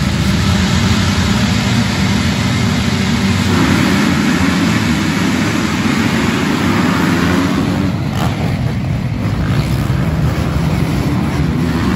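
A full gate of motocross bikes revving at the start line, then accelerating hard together as the pack launches off the start, about three and a half seconds in.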